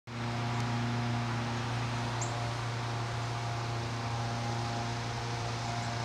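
Steady low machine hum with a faint even hiss, as from a fan or motor running at a distance, with a bird's single brief high chip about two seconds in.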